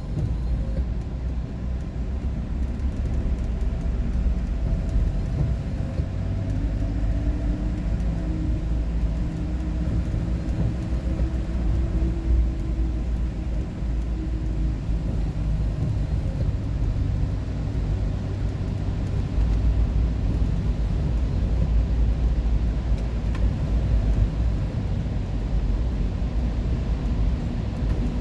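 Steady low rumble of a vehicle driving at highway speed, engine and road noise heard from inside.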